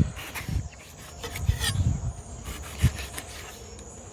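Knife strokes on a wooden cutting board, an irregular series of thuds and scrapes as vegetables are chopped, with insects trilling steadily in the background.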